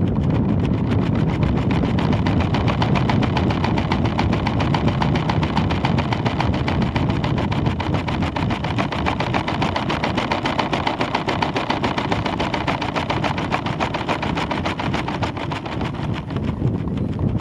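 Air buffeting a weather balloon's camera payload during the climb: a steady rushing on the microphone with a very fast, even fluttering rattle.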